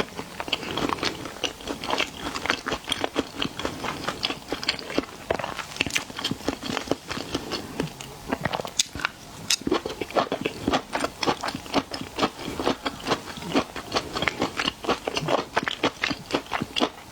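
Close-miked chewing and biting of seafood: a dense run of quick wet clicks and crunches that goes on without a pause.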